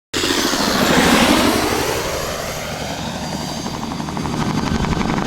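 Helicopter in flight: engine and fast, even rotor-blade chop. It is loudest about a second in, eases off, then builds again.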